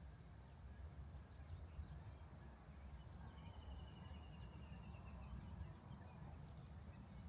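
Quiet outdoor ambience with a steady low rumble; a small bird gives a few faint chirps, then a rapid, slightly falling trill about three seconds in that lasts about two seconds.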